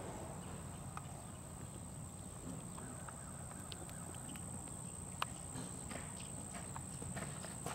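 Horse's hooves on arena sand, soft scattered hoofbeats as it is ridden, over a steady low rumble and a thin steady high-pitched tone.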